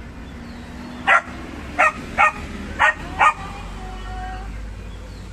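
An excited dog barking five times in quick succession, short yapping barks spread over about two seconds starting a second in.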